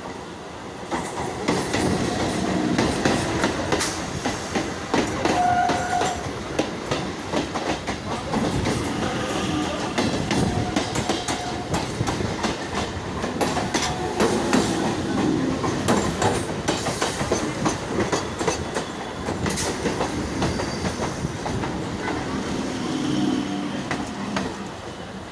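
Local passenger train running along the track, its wheels clacking steadily over the rail joints under a continuous rumble.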